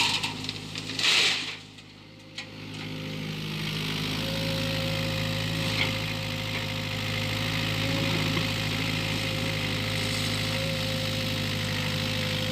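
Excavator engine running steadily at idle, with a loud burst of hissing noise about a second in, after which the sound drops briefly before the engine settles back to a steady run.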